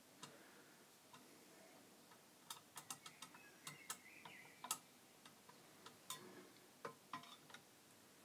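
Very quiet, irregular small clicks of a screwdriver turning a bias trimmer potentiometer on a Sansui 881 receiver's amplifier board, setting the output transistors' idle current. The loudest click comes a little under five seconds in.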